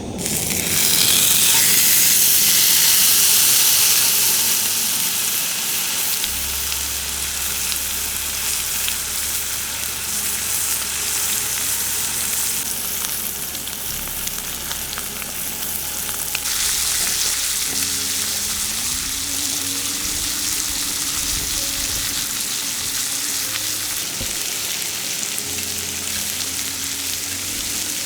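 Wood campfire burning with a steady crackle of many small pops and a hissing sound, louder for the first few seconds.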